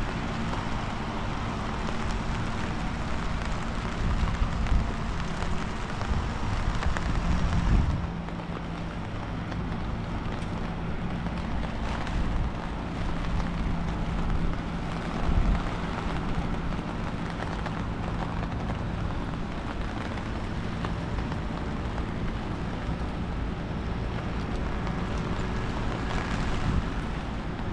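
Wind buffeting the microphone and rain falling in a town street, with a steady low hum underneath. The hiss eases a little about eight seconds in.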